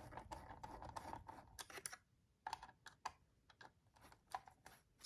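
Screwdriver turning out the small screws that hold a diecast model car to its packaging base: faint, irregular clicks and scrapes, thinning out after about two seconds.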